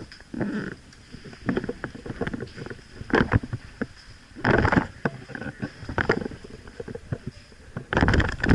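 Irregular thuds and rustling of a player walking in airsoft kit, with clothing and gear brushing close to a body-worn action camera's microphone. Louder scuffing bursts come at a few uneven moments.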